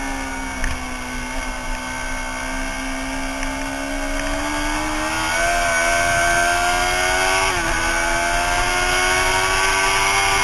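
Suzuki sportbike's engine heard from a camera mounted on the bike at speed: its pitch eases off over the first couple of seconds, then steps up about five seconds in and climbs steadily under throttle, dipping briefly about three quarters of the way through, over a low rumble of wind.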